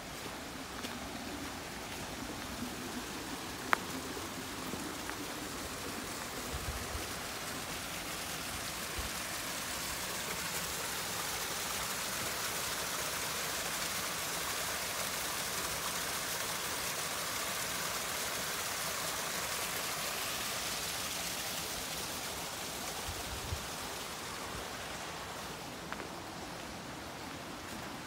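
Small mountain stream babbling and splashing over rocks in a little cascade. It is steady, grows louder toward the middle and fades again near the end. A sharp click sounds about four seconds in.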